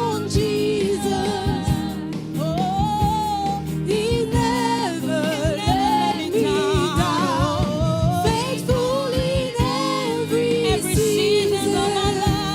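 Gospel worship song performed by a choir with band accompaniment. Voices hold long, wavering notes with vibrato over bass and drums keeping a steady beat.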